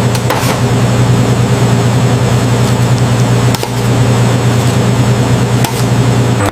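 A motor running steadily: an even, loud low hum with a wash of noise over it.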